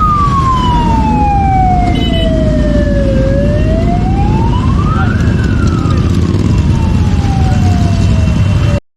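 A wailing siren rising and falling slowly, about one full sweep every six seconds, over a heavy low rumble of road noise. It cuts off abruptly near the end.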